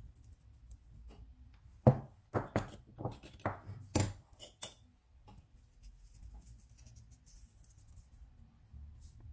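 A quick run of about ten sharp clicks and taps, starting about two seconds in and over within three seconds, against faint room tone.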